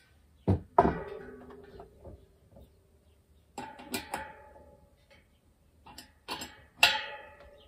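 Metal clinks and knocks from tools and hub parts being worked on a bicycle rear wheel, in three clusters, several with a short metallic ring after them.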